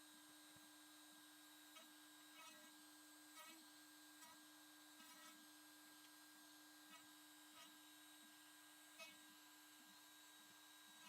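Near silence: a faint steady hum with a few faint scattered ticks.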